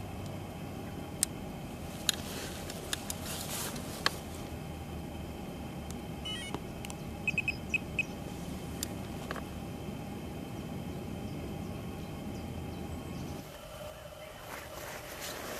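Outdoor background with a steady low rumble, a few sharp clicks, and a quick run of short high beeps about halfway through. Near the end the rumble drops away to a quieter background with a faint steady hum.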